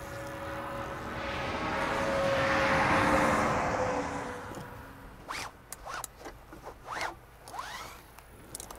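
Fishing gear being handled: a long zip-like rasp swells and fades over about four seconds, then a few sharp clicks and short scrapes follow.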